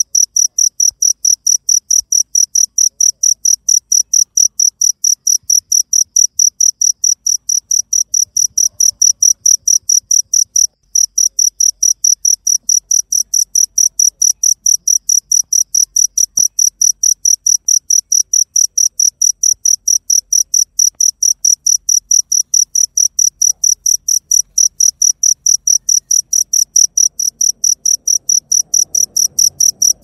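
A cricket chirping steadily: a high-pitched chirp repeated evenly about three to four times a second, with one brief break about a third of the way in.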